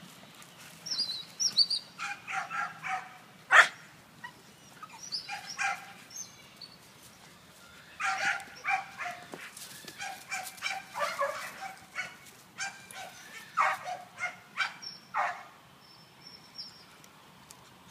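American Pit Bull Terriers barking in repeated short bursts, with quiet gaps between runs; a single sharp, loudest bark comes about three and a half seconds in, and the barking dies away near the end.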